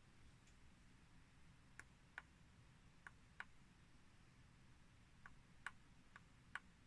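Faint sharp clicks over near silence, about eight of them in pairs roughly half a second apart.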